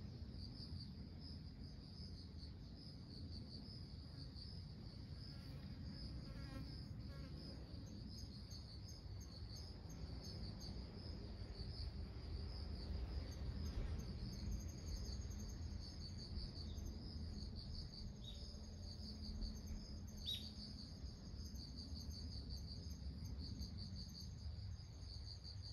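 Insects chirring steadily in a high, finely pulsing drone, over a low background rumble.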